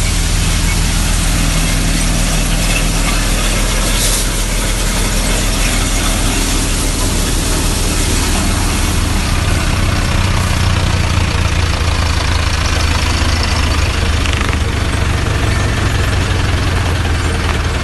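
Tractor engine running steadily, powering an NVT basket-model threshing machine, with the thresher's drum and crop being fed through it adding a continuous rushing noise over the engine's low drone.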